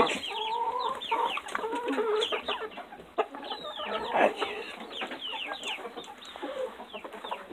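A flock of chickens, hens and roosters, clucking and calling, with many short overlapping calls and one longer drawn-out call near the start.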